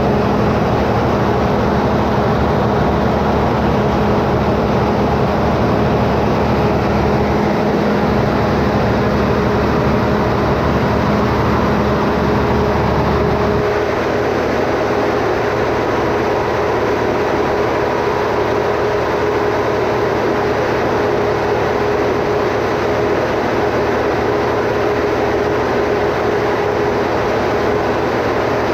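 Standby generator engine running steadily with a constant hum. About halfway through, its deep low hum drops away and it gets slightly quieter, while the higher steady tone carries on.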